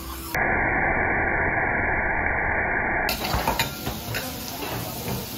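A loud, steady hiss starts abruptly about half a second in and stops just as abruptly about three seconds in. A few light clicks follow.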